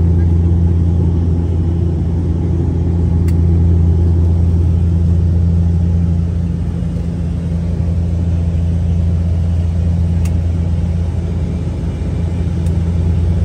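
Steady, loud drone of a turboprop airliner's engines and propellers, heard from inside the passenger cabin in flight.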